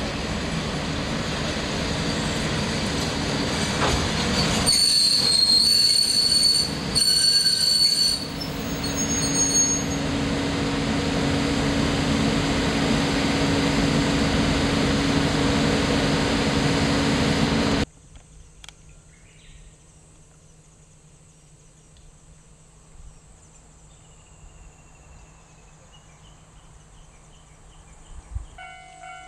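Diesel railcar running on the rails: a loud, dense rumble of wheels and track, with high-pitched wheel squeal about five to nine seconds in. The train noise cuts off abruptly past the middle, leaving a quiet background, and a repeating ringing tone, pulsing about twice a second, starts near the end.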